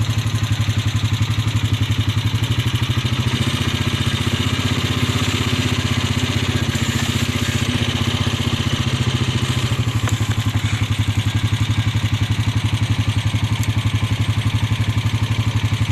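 Engine idling steadily with an even, rapid pulse.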